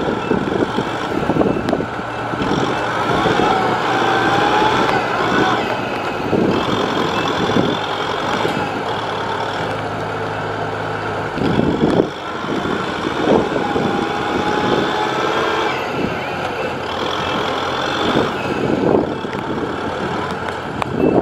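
Diesel engines of a Kubota M6040SU tractor and a Kubota DC70 combine harvester running hard under load while pushing through deep mud, the engine note shifting as the throttle is worked, with an intermittent high beeping.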